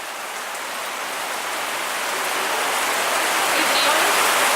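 Heavy rain pouring down, a steady hiss that grows gradually louder.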